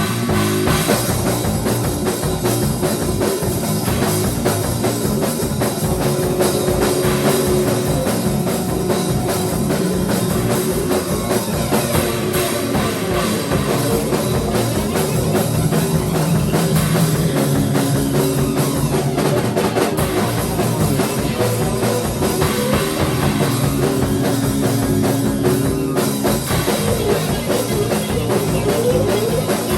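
Instrumental rock band jamming: a drum kit with a fast, steady bass-drum pulse under guitar and bass playing sustained notes.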